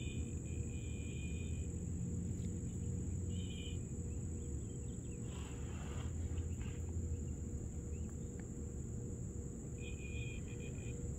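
Insects chirping in short pulsed trains, three times, over a steady high-pitched trill and a low rumble.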